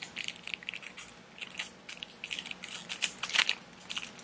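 Fingers and fingernails handling a paper-tube lipstick close to the microphone: a run of small irregular clicks and crinkles, busiest about three seconds in.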